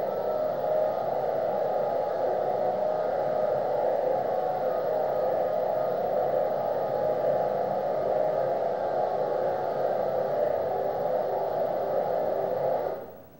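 A steady, hissing electronic drone from the video installation's soundtrack, with faint thin tones above it. It fades out near the end.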